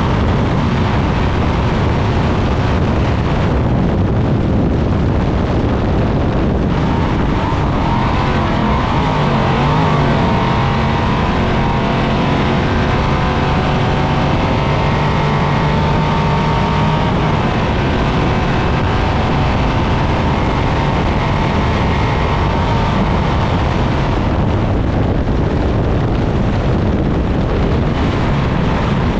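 A 1000+ hp all-wheel-drive Trophy Truck's engine, heard from inside the cockpit at racing speed off-road. It runs loud and steady, with the revs rising and falling, over a constant rush of wind and rattle from the chassis.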